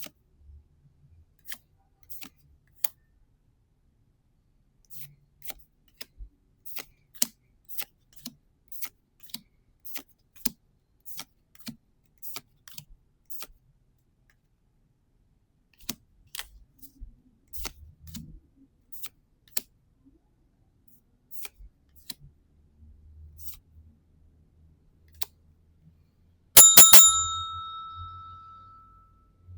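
Light clicks and taps of trading cards being handled and flicked through. Near the end a small bell rings once, loud and bright, dying away over about two seconds.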